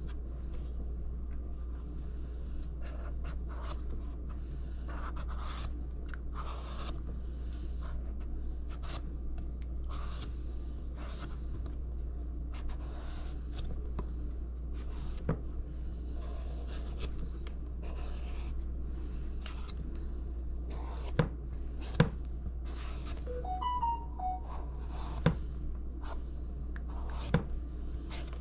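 Knife peeling and cutting a mango: repeated soft scraping strokes, with a few sharp knocks of the blade on the board, over a steady low hum.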